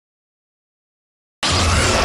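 Dead silence, then about one and a half seconds in a loud monster sound effect cuts in abruptly: a dense, rough cry over a deep rumble.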